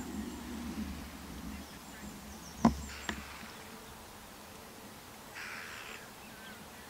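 A fly buzzing close by for the first couple of seconds, then two sharp clicks about half a second apart. Faint bird chirps sound in the background.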